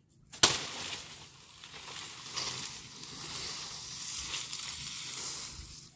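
A sharp crack about half a second in, then the dry leaves of a large coconut palm frond rustling and scraping as it is dragged across a concrete roof, stopping just before the end.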